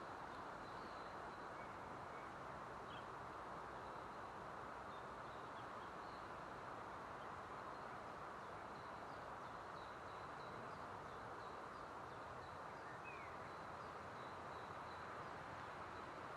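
Faint woodland ambience: small birds giving short, high chirps now and then, plus a couple of brief falling calls, over a steady even hiss.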